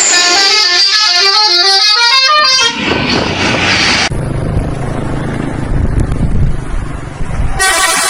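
Multi-tone 'telolet' bus horn playing a rapid warbling tune of alternating notes for about two and a half seconds. It gives way abruptly to a low rumble with noise, and near the end another horn tune starts.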